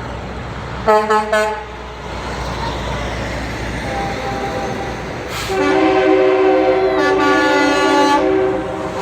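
Semi-truck air horns honking over the low rumble of diesel engines. There are three short toots about a second in, then a long, louder blast of several tones at once from about five and a half seconds until near the end.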